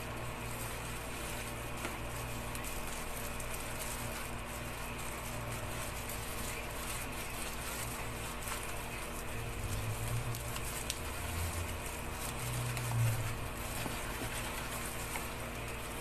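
A steady low hum with a faint hiss, broken by a few faint clicks.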